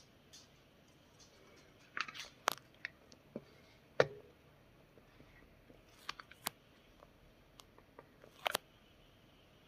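Scattered sharp clicks and taps of tarot cards being handled and laid down on a wooden table. There is a cluster about two seconds in, the loudest tap about four seconds in, and more around six and eight and a half seconds.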